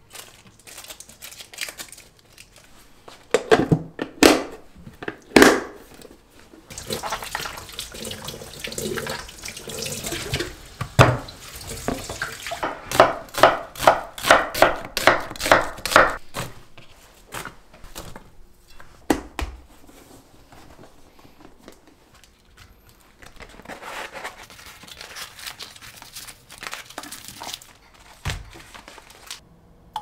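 Kitchen prep sounds: water running from a tap, and a kitchen knife cutting an onion on a wooden cutting board in a quick, even run of strokes around the middle, with scattered knocks.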